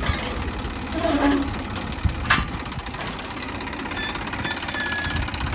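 An engine running steadily, with one sharp click about two seconds in.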